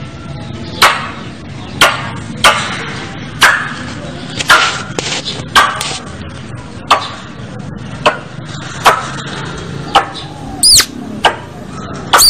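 A squirrel's calling sound played as a lure: sharp, loud calls repeated about once a second, some in quick pairs, with two higher calls near the end that rise and fall in pitch.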